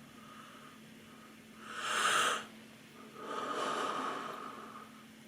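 A woman yawning: a loud, airy breath lasting under a second, then a longer, softer breath out.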